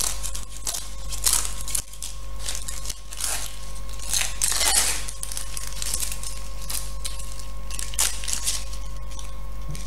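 Thin paper stabilizer being torn and pulled away from a machine-stitched seam on knitted wool fabric: irregular paper rips and crinkles, thickest in the first five seconds and sparser after.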